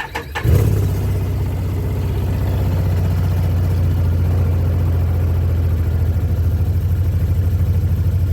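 2012 Can-Am Commander 1000's fuel-injected Rotax V-twin engine cranking briefly and catching about half a second in, then idling steadily with an even low pulsing.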